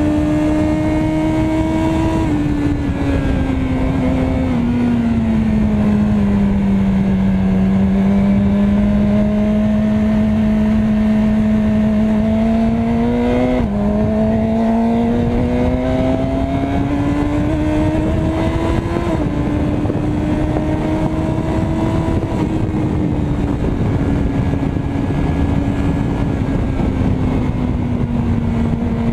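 Yamaha R6 sportbike's inline-four engine running under way, heard from the bike. Its note falls and rises smoothly with speed, dips sharply in pitch at about 2, 14 and 19 seconds in, and runs over a steady rushing noise.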